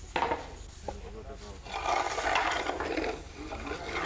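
A short sharp sound just after the start, then a loud, rough animal call lasting about a second and a half, beginning near two seconds in.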